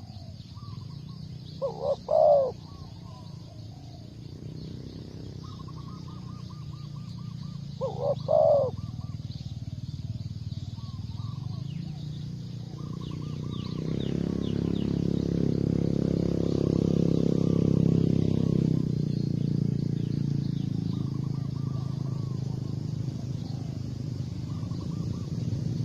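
Spotted dove cooing: two loud coos about six seconds apart, with faint twittering of small birds. In the second half a low rumble swells and fades.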